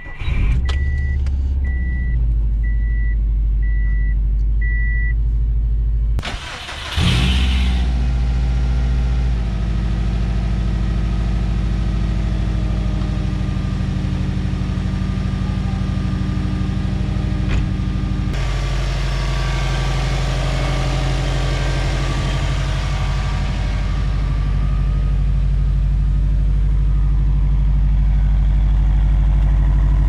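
Subaru WRX's turbocharged flat-four engine starting and then idling steadily. A warning chime beeps about six times in the first few seconds. About six seconds in the sound briefly breaks off, and a short noisy burst comes before the steady idle settles in.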